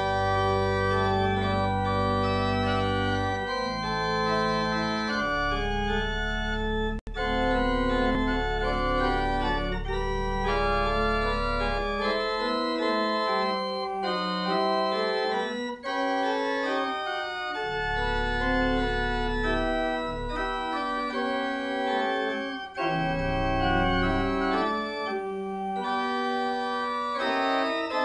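Organ playing a slow hymn prelude: sustained chords held over long low pedal notes, starting suddenly out of silence.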